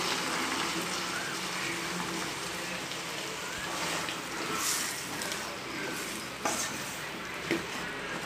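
Boiled black chickpeas being stirred into a simmering gravy in a stainless-steel pan: a steady low sizzle and bubble. A few short scrapes and taps of the spatula against the pan come in the second half.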